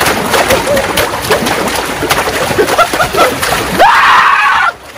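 Splashing and sloshing through slime-thickened water in a kiddie pool, continuous and loud. Near the end comes a loud held yell.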